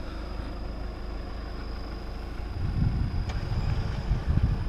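Off-road 4x4 engines running with a steady low rumble that swells louder and more uneven about two and a half seconds in. A single faint click comes shortly after.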